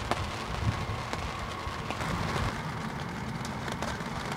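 Rain falling on a moored sailing yacht: many separate drop ticks over a steady hiss, with a low rumble underneath.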